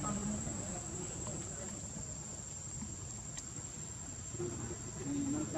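Steady high-pitched drone of insects, with a short low call near the end.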